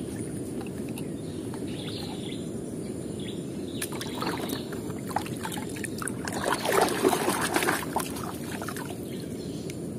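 Muddy water sloshing and splashing as a hand plunges a small die-cast toy car into a tub and swishes it about. It comes in splashes from about four seconds in and is busiest between six and eight seconds, over a steady low background rumble.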